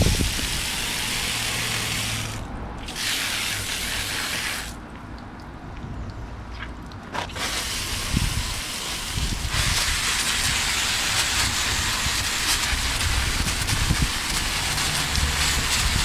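Garden hose spray nozzle hissing as it sprays water onto plastic air-conditioner filters and grilles, rinsing off the bleach and soap solution. The spray breaks off briefly about two and a half seconds in and is much weaker from about five to seven seconds, then runs steadily.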